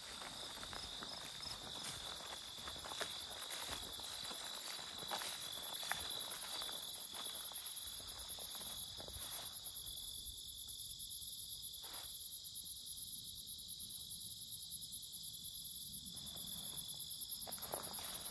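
Crickets trilling in a steady, high, unbroken chorus. Footsteps on a grassy path come through for the first several seconds and again near the end.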